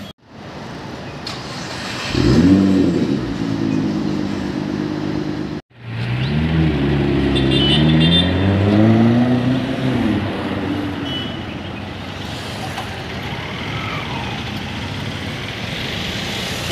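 A Nissan GT-R's twin-turbo V6 accelerates away, its pitch climbing and dropping through gear changes, with street traffic around it. The sound is broken by a sudden cut about five and a half seconds in; before the cut another engine runs at a steadier pitch.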